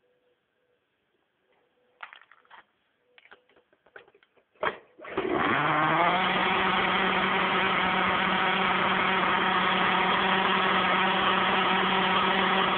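Sirio EVO4 nitro glow engine in an RC buggy, being run in: a few clicks and knocks as it is handled, a short burst about four and a half seconds in, then it fires about five seconds in and idles steadily, its pitch settling slightly higher in the first second.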